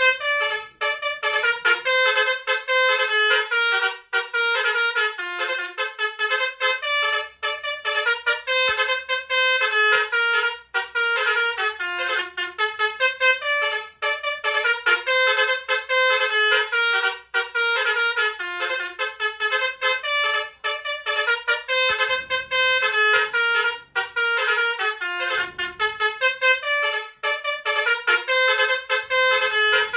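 Basuri multi-trumpet 'telolet' bus horn playing a fast melodic tune, jumping between notes several times a second with only short breaks.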